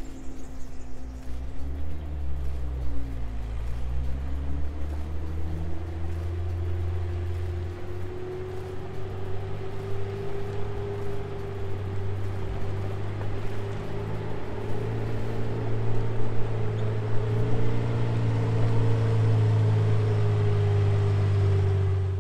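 Centurion tank's Rolls-Royce Meteor V12 petrol engine running and getting louder as it approaches, its note rising in pitch over the first several seconds, then cutting off suddenly at the end.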